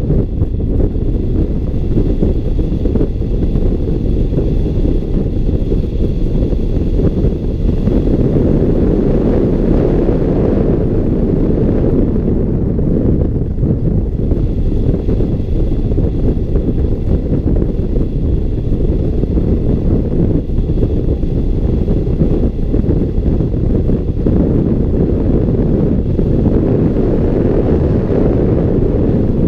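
Airflow buffeting the microphone of a camera mounted on a hang glider's wing in flight: a loud, steady, low rushing wind noise.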